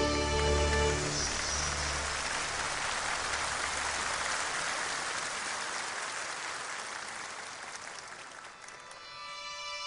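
Audience applauding as the last notes of a song fade, the clapping slowly dying away; soft music of the next piece begins near the end.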